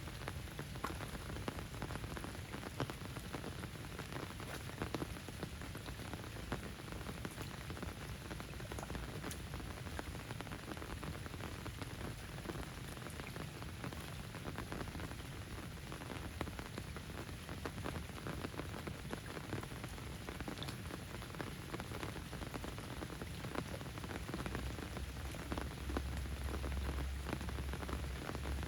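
Steady rain falling, a dense patter of drops. A low rumble comes in near the end.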